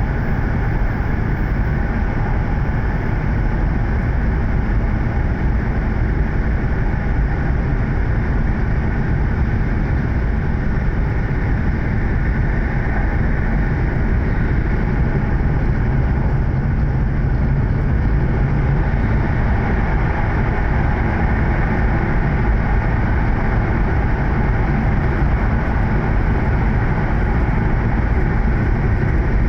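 Hokuriku Shinkansen E7 series train running, heard from inside a passenger car: a steady, even rumble of the running train that neither rises nor falls.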